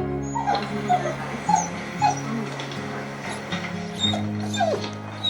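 Dogs whimpering and yipping in a run of short, high squeaks, with a falling whine near the end, over a slow song in the background.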